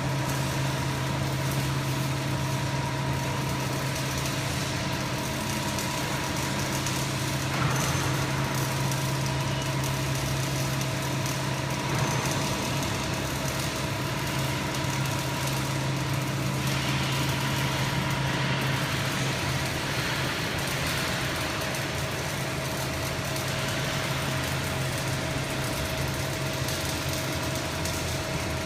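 Hydraulic press brake's pump unit running with a steady machine hum. A higher hiss joins about halfway through.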